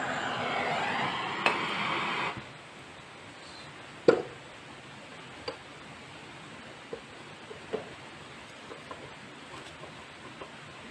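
Aerosol spray can hissing into a scooter crankcase's crankshaft bearing, cutting off about two seconds in. Then light metallic clicks and knocks as the crankshaft is fitted into the crankcase half by hand: one sharp click about four seconds in, and several fainter ones after it.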